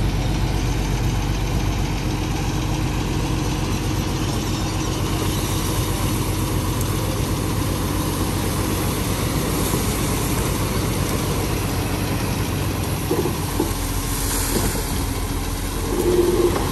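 Dump truck's diesel engine running steadily while the hydraulic hoist tips the loaded bed and soil slides out the back, with a brief louder squeak near the end.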